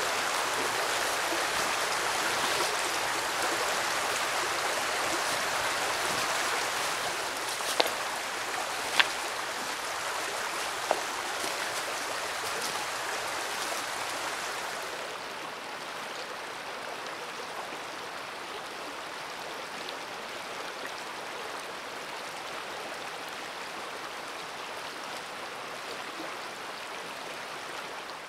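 Creek water flowing in a steady wash that softens about halfway through, with three sharp clicks a third of the way in.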